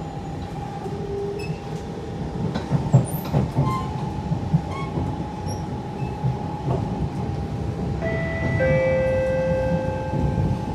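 Siemens C651 metro train running between stations, heard from inside the car: a steady rumble with scattered clicks from the wheels on the track and a steady whine. About eight seconds in, several more steady tones join in.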